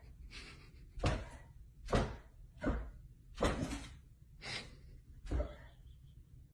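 A series of about seven dull thumps or knocks, roughly one a second, getting weaker toward the end.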